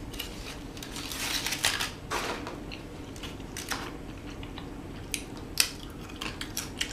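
Crinkling and rustling of food packaging during a meal, loudest between about one and two seconds in, followed by a few sharp clicks and knocks of containers or utensils.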